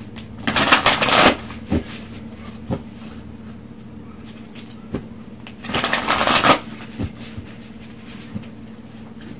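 A deck of Moonology oracle cards being shuffled by hand: two short bursts of riffling, one about half a second in and one about six seconds in, with a few light card taps between.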